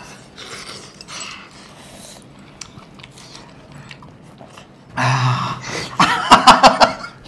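Soft chewing, biting and mouth sounds of people eating a spicy cooked chicken leg off the bone, with a few small clicks. About five seconds in, a loud wordless vocal sound from a man comes in and breaks into short rapid pulses.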